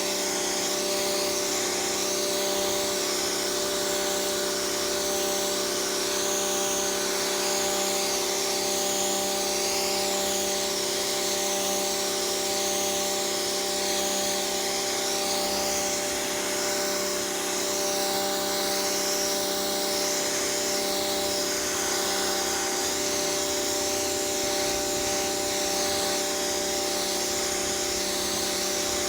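High-pressure washer running steadily: its motor hums evenly under the hiss of the water jet striking the pavement.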